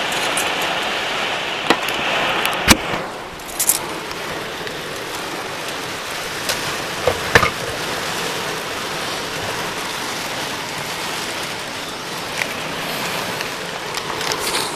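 Rain falling steadily, with a few sharp taps; the hiss thins about three seconds in.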